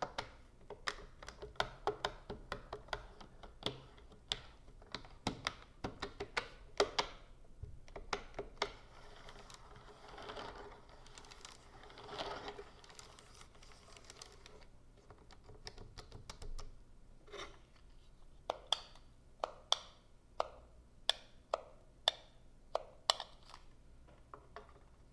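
Keys of a keyboard being typed and tapped: quick runs of clicks for the first several seconds, then a softer continuous rustling for several seconds in the middle, then slower, separate key presses about one every half second to second.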